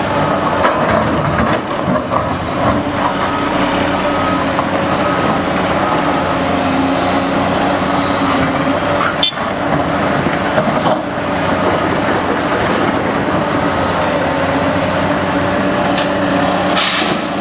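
Loud, steady engine noise of a vehicle or machine running with fixed hums, with a sharp click about nine seconds in.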